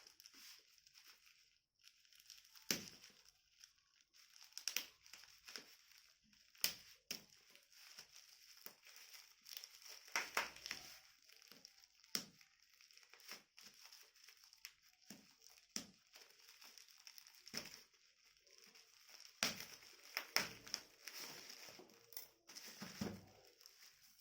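Packaging being handled and unwrapped: crinkling and rustling of plastic and paper with frequent irregular clicks and light knocks, as a phone box and its contents are opened and handled.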